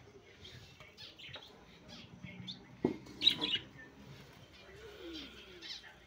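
Small pet parrots chirping in short calls around their cages, with a sharp knock about halfway through and a louder burst of chirping just after it.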